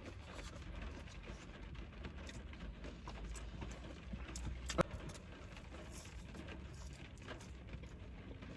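Quiet eating and food-handling sounds: scattered light clicks and taps of food containers and packaging, with one sharper click about five seconds in.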